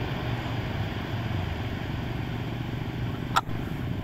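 Steady low rumbling background noise, with one sharp click about three and a half seconds in.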